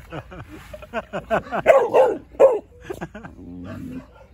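Rottweiler puppy barking at a young chicken in a quick run of about five short barks, then a lower drawn-out sound. The barks come from a play bow: the puppy is wary of the bird but trying to play with it.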